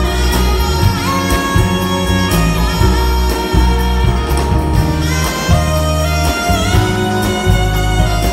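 Live band music: a saxophone plays a solo line over drums, bass, acoustic guitar and keyboards with a steady beat.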